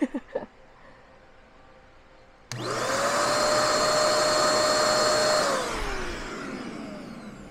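Deerma DX115C handheld vacuum cleaner switched on about two and a half seconds in: the motor whines up to speed and runs steadily with a hiss of air for about three seconds as the nozzle works over a computer keyboard. Then it is switched off and winds down with a falling whine.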